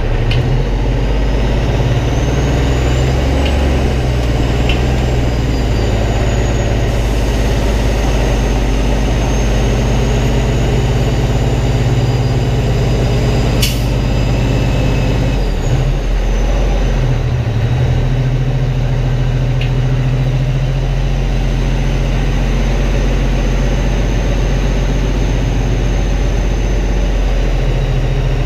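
Peterbilt semi-truck's diesel engine running steadily as the truck creeps along at low speed, with a faint high whine rising over the first few seconds and one sharp click about halfway through.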